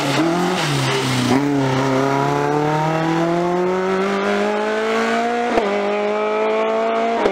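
Rally car engine accelerating hard out of a hairpin and pulling away up the road. The engine note dips briefly near the start, then climbs steadily in pitch for several seconds, and a short sharp crack comes about five and a half seconds in.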